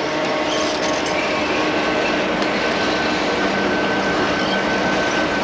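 Diesel-electric locomotive engines running at the depot: a steady, loud engine drone with a few held tones over it, and a lower tone joining about three and a half seconds in.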